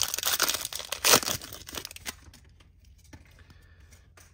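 Foil trading-card pack being torn open and crinkled, with a sharp rip about a second in as the loudest sound. After about two seconds it drops to faint rustles and a couple of small clicks as the cards are handled.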